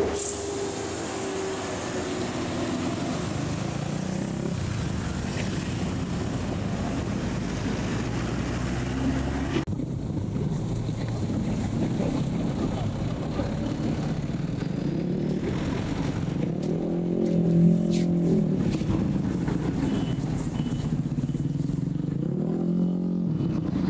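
Steady road traffic noise: large diesel bus and truck engines running close by, with faint voices in the background. The sound changes abruptly about ten seconds in.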